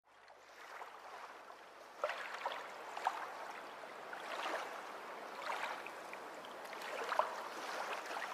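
Faint sound of moving water, a gentle lapping with small irregular splashes, fading in at the start.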